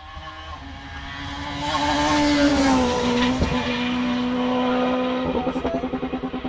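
Rally car engine at high revs going past, its note dropping in pitch as it passes, with a single sharp crack midway. The note then holds steady and breaks into a rapid flutter of about eight pulses a second near the end as it fades.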